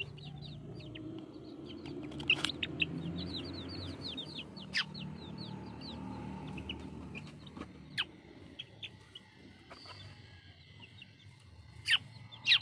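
Chickens clucking and peeping in runs of short, quick, high chirps, with a few sharp clicks.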